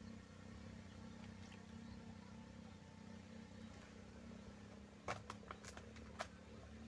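Near silence: a faint steady low hum, broken about five seconds in by a quick run of five sharp clicks.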